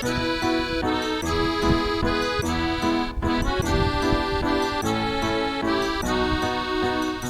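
Instrumental background music: a melody of short notes over a steady rhythm.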